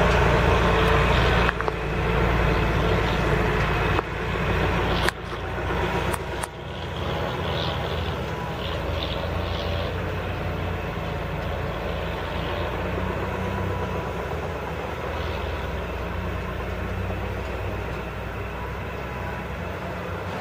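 Heavy truck's diesel engine labouring in low gear up a steep, rocky dirt road, a steady drone that drops in level after the first few seconds as the truck pulls away. A few sharp clicks about five and six seconds in.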